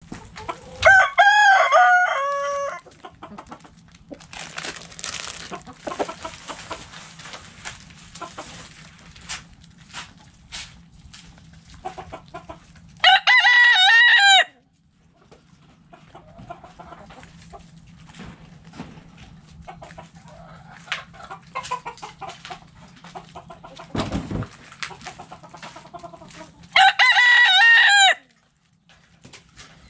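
Chickens in a coop: a rooster crows about a second in, with two more loud, wavering crows near the middle and near the end, while hens cluck softly in between.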